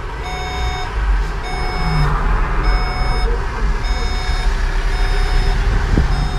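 Electronic warning beeper in a bus cab sounding repeatedly, about one half-second beep a second, over the steady rumble of the stationary bus's engine.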